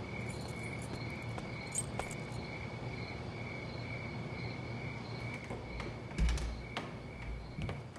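Crickets trilling steadily as night ambience. A few sharp clicks come through, and a low thump about six seconds in is the loudest sound.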